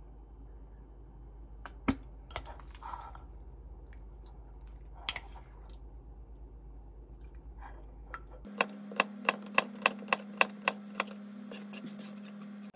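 A few clicks and scrapes of a wooden spoon in a ceramic bowl as cubed salmon is stirred into sauce. About eight seconds in, a knife chops cucumber on a cutting board in a regular run of sharp strokes, about three a second, over a steady low hum.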